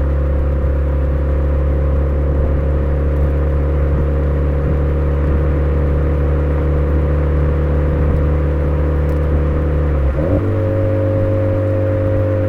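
Exhaust note of a Suzuki Swift Sport ZC33S's 1.4-litre turbo four-cylinder through a Fujitsubo aftermarket muffler, running steadily at an even engine speed while driving. About ten seconds in the note changes pitch abruptly, then slowly sinks.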